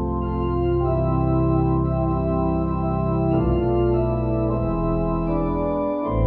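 Organ playing slow, sustained chords over a deep bass, with the chord changing every second or two.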